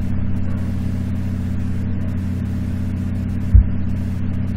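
A steady low machine hum, like a running motor, with a single low thump about three and a half seconds in.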